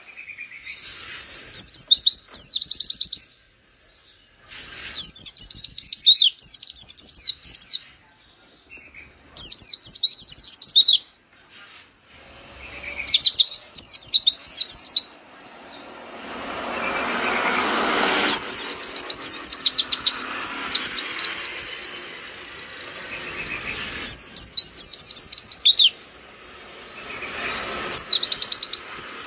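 Caged white-eye (pleci) singing in rapid bursts of high, fast downward-sweeping notes, each burst a second or two long and repeated every few seconds. About halfway through, a broad rushing noise swells and then fades under the song.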